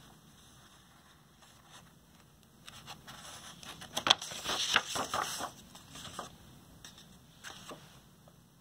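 Pages of a picture book being turned and handled: a run of paper scrapes and crackles from about three to six seconds in, loudest around four seconds, with a couple more near the end.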